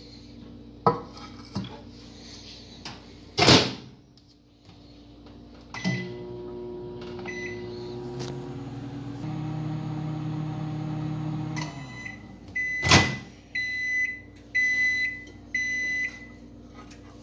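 Microwave oven in use: the door shuts with a loud clunk, a few keypad beeps follow, and the oven runs with a steady hum for several seconds. Near the end comes another loud clunk of the door and a series of four or five high beeps about a second apart.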